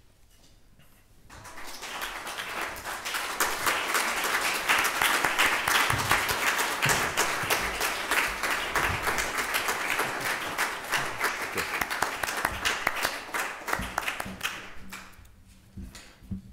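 Audience applauding to welcome a performer onto the stage. The clapping starts about a second in, swells, and dies away near the end.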